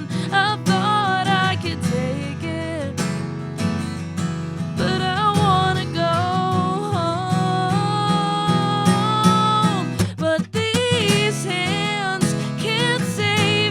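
A song played live with no words sung: strummed acoustic guitar under a gliding melody line. The music briefly drops away about ten seconds in, then picks up again.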